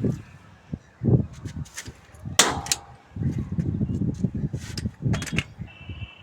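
Sharp metallic knocks and handling noise, the loudest a clang about two and a half seconds in that rings briefly.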